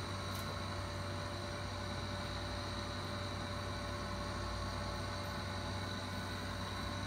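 Window-type air conditioner running: a steady hum with a faint even hiss.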